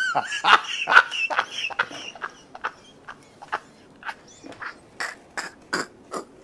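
A man's helpless laughter: a high wavering laugh at first, then a long run of short wheezing gasps, about two a second.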